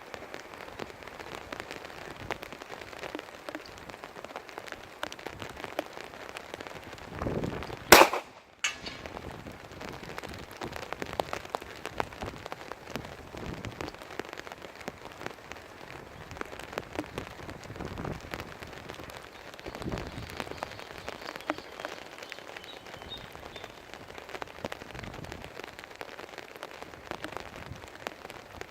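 Steady rain with gusting wind, and a single .45 ACP pistol shot from a Glock 21 about eight seconds in.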